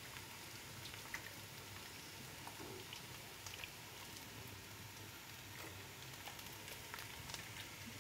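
Shrimp sauce simmering in a steel pot with a faint, steady hiss and light bubbling, and a few small clicks as it is stirred with a wooden spoon while it thickens with flour.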